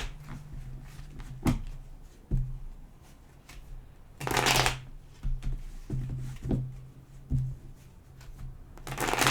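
A deck of tarot cards being shuffled by hand: a longer riffle about four seconds in and another near the end, with a few light card taps in between, over a steady low hum.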